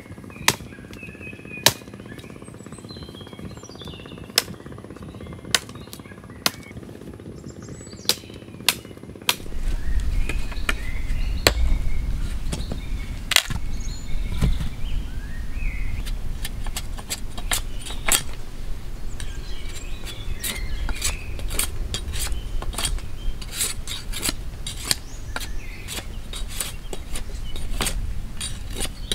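Machete chopping wood: single sharp strikes about a second apart, with birds chirping. About nine seconds in, the strikes come faster and closer together over a steady low rumble, as a stick is hacked and shaved against a log.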